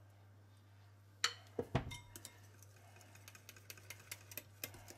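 A few knocks about a second in, then a metal wire whisk ticking lightly against a small glass bowl, several ticks a second and quickening near the end, as dissolved gelatin is whisked with a little of the dulce de leche and yogurt mixture to temper it.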